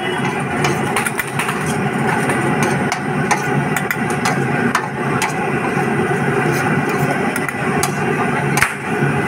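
Two steel spoons clinking and scraping against a large flat steel pan as sweet corn is tossed with masala, in many short, irregular clicks over a steady engine-like hum.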